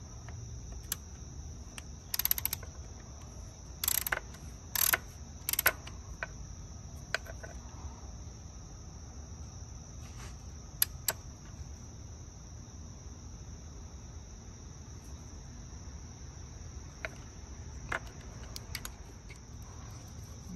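A ratchet wrench clicking in a few short bursts between about two and six seconds in as it tightens an ignition coil's 10 mm hold-down bolt, followed by a few lighter single clicks from handling the tool and parts. Crickets chirp steadily throughout.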